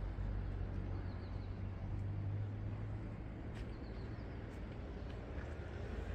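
Outdoor street ambience with a low vehicle engine hum that fades away over the first three seconds. A few faint, short, high chirps come twice, and a few light clicks fall in the second half.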